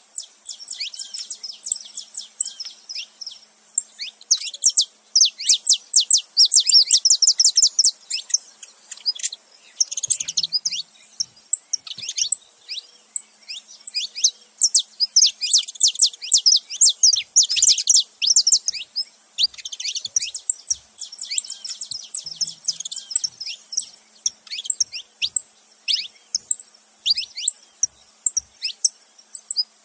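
A male and female saffron finch chirping together: a busy stream of quick, high-pitched, down-slurred notes, coming in dense runs with short gaps between them.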